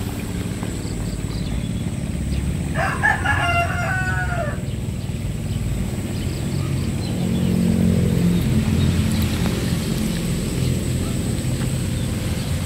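A rooster crows once, about three seconds in, over the steady low running of a hand tractor's engine, which grows louder for a couple of seconds later on.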